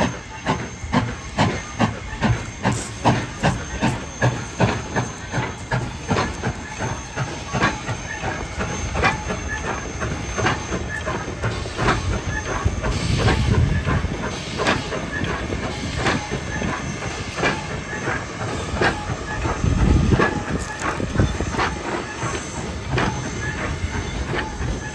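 East Broad Top No. 16, a narrow-gauge 2-8-2 steam locomotive, working slowly past with regular exhaust chuffs, about two a second, over a steady hiss of steam. Heavier low rumbling comes in twice, about halfway through and again a few seconds later.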